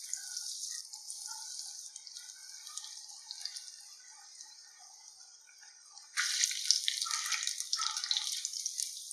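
Breadcrumb-coated bread rolls deep-frying in hot oil: a steady crackling sizzle with many small pops. It eases off over the first few seconds, then turns suddenly louder about six seconds in.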